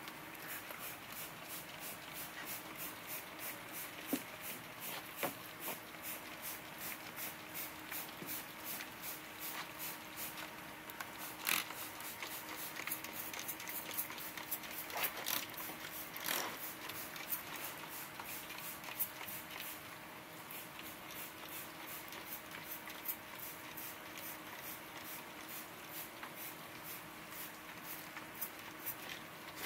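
Acid wash being sprayed from a hand sprayer onto a steel sculpture: a long run of short, evenly repeated spritzes, with a few sharper ones near the middle.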